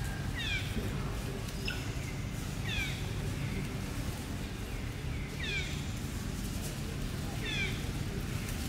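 Monkey squeaking: about five short, high calls, each falling in pitch, over a steady low rumble.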